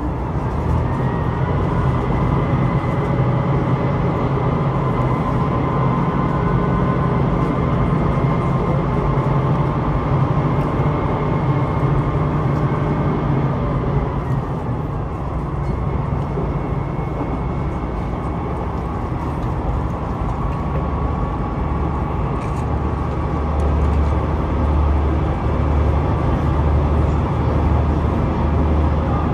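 Running noise of a passenger train heard from inside the carriage: a steady rumble and hum with a faint high whine through the first half. A deeper, pulsing hum takes over in the last few seconds.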